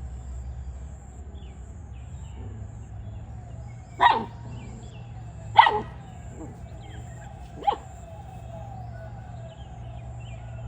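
A puppy barking three short times, a second or two apart, spread through the middle of the stretch.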